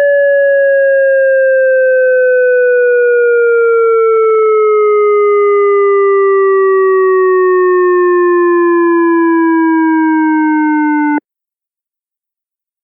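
ASC digital electronic siren controller's synthesized Fire signal, a loud siren tone gliding slowly down in pitch with a faint regular throb of about two a second. It winds down and cuts off abruptly about eleven seconds in, leaving silence.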